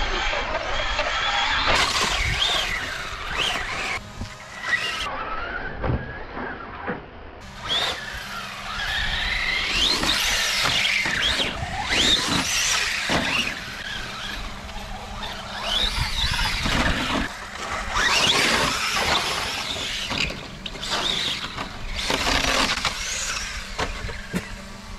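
Traxxas Slash RC truck's electric motor whining, its pitch rising and falling again and again as the throttle is worked up and down.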